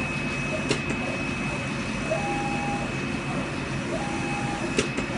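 CNC fabric-cutting machine running: a steady mechanical hum with a constant high whine, a couple of short whirring tones as it moves, and two sharp clicks about four seconds apart.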